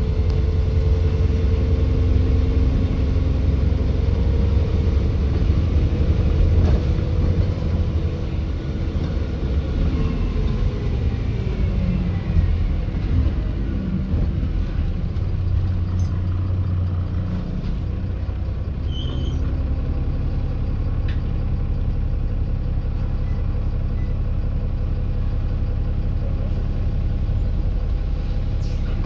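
Dennis Enviro400 double-decker bus running, a steady low engine rumble with a whine over it. The whine falls in pitch about ten to fourteen seconds in as the bus slows, then the engine runs on steadily.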